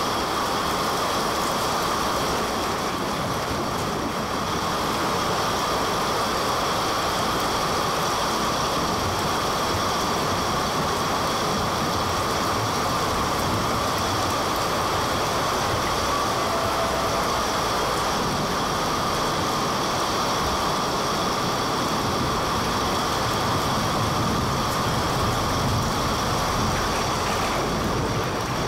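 Steady, even rumble and hiss of vehicle noise, running unchanged throughout.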